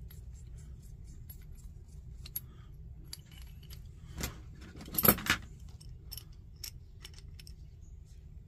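Small metal parts of a propane camp stove clicking and clinking as it is put back together by hand, with a louder clatter of metal about five seconds in.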